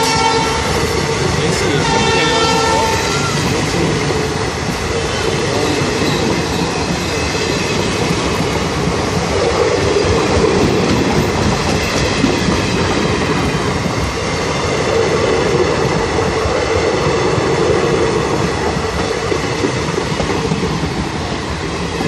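Express passenger coaches rolling past close by, wheels clattering on the track in a steady rumble. The horn of the hauling WDP-4B diesel locomotive finishes a blast just at the start and sounds again briefly about two seconds in.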